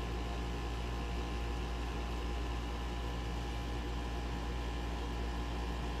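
A steady machine hum: a deep drone with a few faint steady tones and a light hiss above it.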